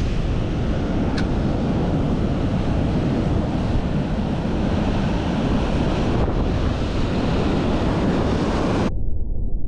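Sea surf breaking and washing over rocks, with wind buffeting the microphone as a steady loud rush. About a second before the end the sound turns suddenly muffled, leaving a low rumble.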